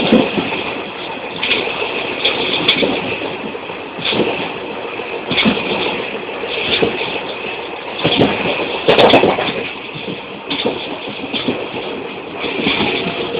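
A train running, heard from on board: a steady rumble with a knock about every second and a half as the wheels pass over rail joints, and a louder clatter about nine seconds in.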